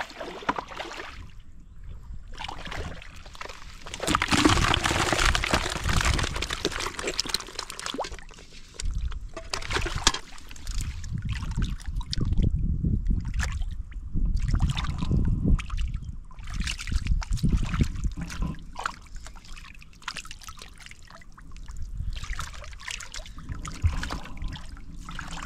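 Muddy water and wet mud sloshing and splashing as hands grope through a shallow, drained mud pool for fish. The splashing is loudest for a few seconds from about four seconds in, then comes in shorter, scattered splashes.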